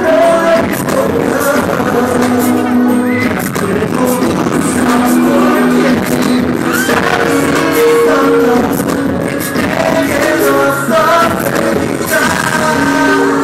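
Live K-pop ballad: male singers singing into handheld microphones over a backing track, played loud through a large arena's sound system.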